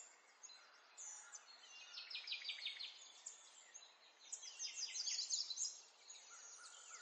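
Small birds chirping faintly in quick runs of short, high, descending chirps, with a lull between the runs.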